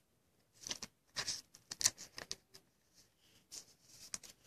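A trading card handled between fingers: a scatter of faint, short rustles and ticks, irregularly spaced.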